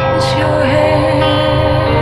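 Experimental drone music: layered held tones over a dense, steady low bed. About a quarter second in, a sweeping sound falls steeply in pitch.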